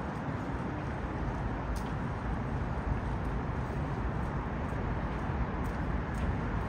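Steady low rumble of traffic on the bridge deck overhead, with a few faint ticks now and then.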